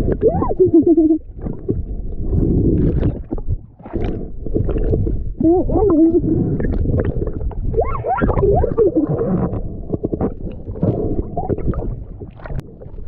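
Underwater camera sound of a diver: muffled, rumbling water noise with bubbling crackles, broken several times by short, muffled, gliding vocal sounds through the snorkel.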